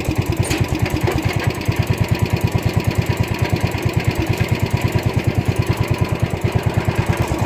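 Wheel Horse Raider 10 garden tractor's single-cylinder engine idling with a steady, even beat.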